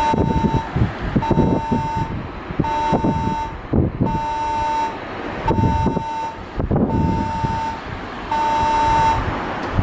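Sanyo Electric Railway platform door-cut warning device sounding its alarm: a steady, evenly repeating electronic beep, about one long beep every second and a half, over a low irregular rumble.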